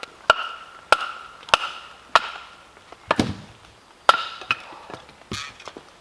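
Firewood being chopped or split with a blade: repeated sharp strikes into wood, each with a short ringing note, the first four evenly about a second and a half apart in total pace of roughly one every 0.6 s. About three seconds in a lower crack as the wood gives way, then a few more strikes.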